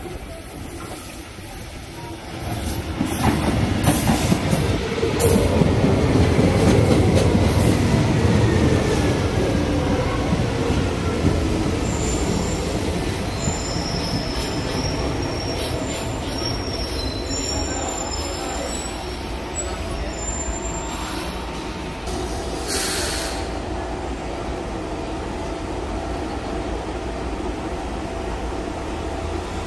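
Brasília Metro (Metrô-DF) train pulling into an elevated station. It grows loud as it passes close by, and its motor whine falls in pitch as it slows, followed by thin high wheel squeals. A short hiss comes about two-thirds of the way through.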